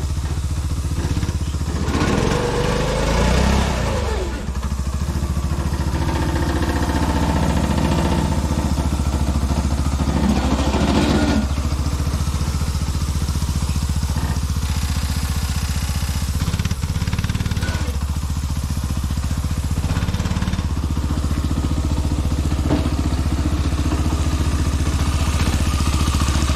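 Small go-kart engine running as the kart is driven over grass, a steady drone whose pitch rises and falls with the throttle a couple of times.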